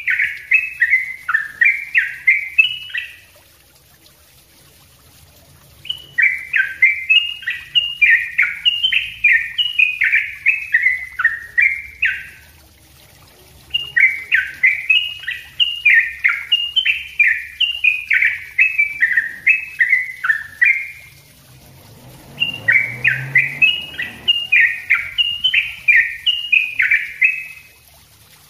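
Yellow-vented bulbul (trucukan) singing its fast, tightly packed 'ropel' song: four bouts of quick, short descending notes, each bout several seconds long, separated by brief pauses.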